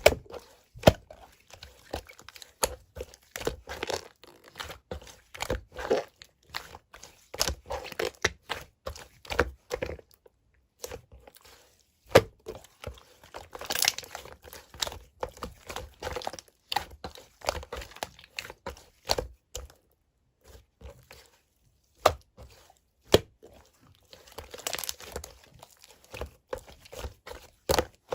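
Slime being pressed, stretched and folded by hand: dense, irregular clicks and crackling pops as air pockets are squeezed out, with a couple of short pauses.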